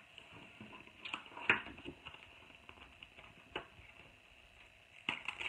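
Faint handling of a plastic cutting mat and cardstock: soft isolated taps about a second and a half in and again past three and a half seconds, then louder rustling near the end.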